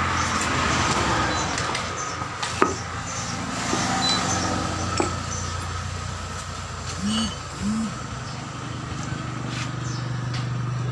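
A steady low engine-like hum, with a few sharp metal clicks as a heavy pneumatic impact wrench is handled on a tyre.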